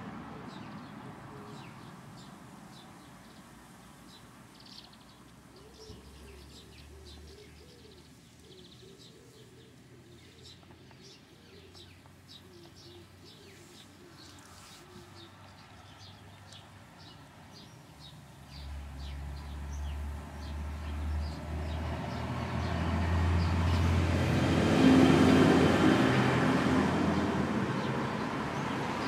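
Outdoor garden ambience: small birds chirping and cooing calls faintly, then a low rumble swells up from about two-thirds of the way through, loudest near the end before easing off.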